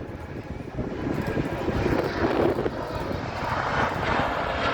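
Airliner jet engines, a steady rushing noise that grows louder and brighter over the last couple of seconds.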